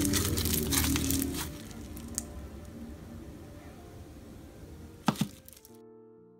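Clear glitter slime being stretched and squeezed by hand, crackling and popping in quick clicks, busiest in the first second and a half, with a last sharp double pop about five seconds in. Soft piano music starts near the end.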